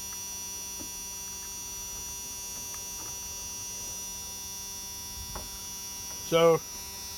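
Dodge's dashboard warning buzzer sounding continuously, a steady electric buzz, with a few faint clicks.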